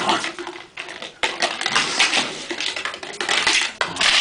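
A flower pot being pushed, dragged and knocked about on a concrete floor by a playing dog. It scrapes and clatters in a run of irregular bursts.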